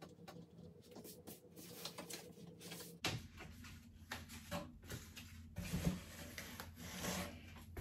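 Quiet desk-work noises: a pen writing on small paper cards, with scattered taps and handling knocks, over a low steady hum. The loudest knocks come near the end.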